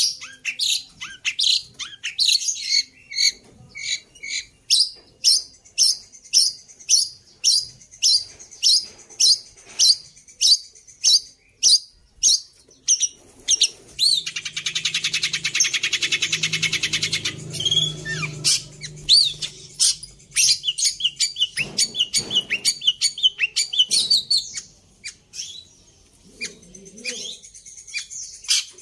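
Long-tailed shrike singing a mimicry-filled song. It opens with a run of sharp, high chirps repeated about twice a second, breaks into a harsh, rapid chatter for a few seconds around the middle, then goes on with more varied chirps.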